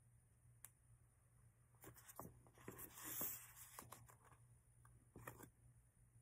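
Faint paper rustling and soft scraping as an open paperback book is handled and shifted by hand, loudest about halfway through, with a brief rustle again near the end.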